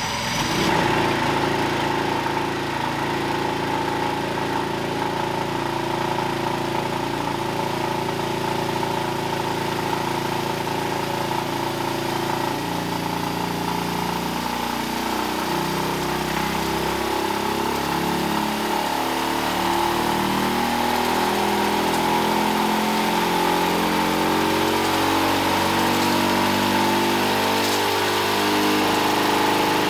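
Predator Ghost 212cc single-cylinder four-stroke engine running on a dyno through a pull. It holds a steady speed for roughly the first twelve seconds, then its pitch climbs as the revs rise to about 6,000 rpm near the end. A steady high whine runs underneath.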